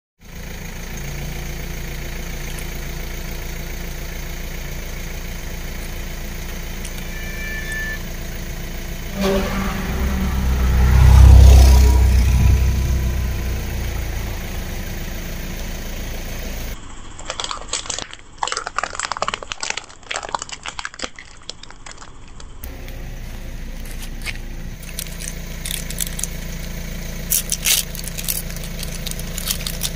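A car engine running steadily at idle, with a much louder low rumble that swells and fades about ten to thirteen seconds in. Later come bursts of sharp clicks and rustles as objects are handled and set down on the asphalt.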